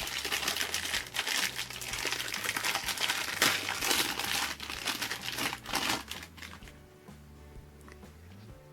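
Crinkling plastic packaging being handled, a dense run of crackles that dies away about six and a half seconds in, over soft background music.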